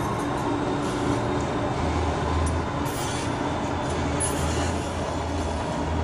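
A Saarbahn tram-train, a Bombardier Flexity Link, running past along street track. It makes a steady rolling noise, with a low hum that comes in about two seconds in and eases off near the end.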